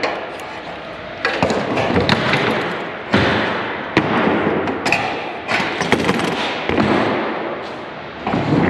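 Light-gauge steel truss being handled and flipped over on a wooden assembly table: a run of about six sudden knocks and thumps of metal on wood, each fading off over about a second.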